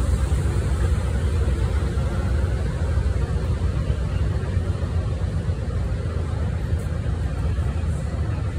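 Steady low rumble beside a standing Amtrak Superliner passenger train, with a faint tick or two near the end.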